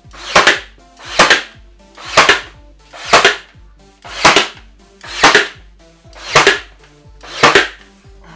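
Ryobi One+ 18V cordless nailer firing nails into quarter round molding, eight shots about a second apart. Each shot is preceded by a short rising whir as the nailer builds up to fire.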